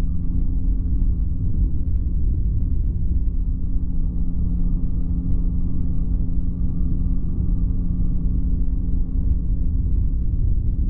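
Flexwing microlight's engine and propeller running steadily at cruise, an even unchanging drone, with heavy wind rumble on the microphone.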